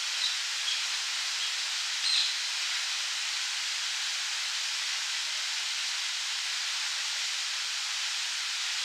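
Park fountain's water jet splashing down into its basin: a steady hiss of falling water. A few short bird chirps come through in the first couple of seconds, the loudest about two seconds in.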